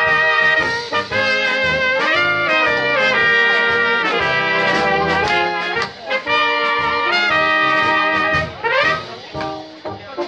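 Central European brass band (Blaskapelle) playing a tune, with trumpets carrying the melody over a tuba and lower horns. The sound dips briefly about six seconds in and softens near the end.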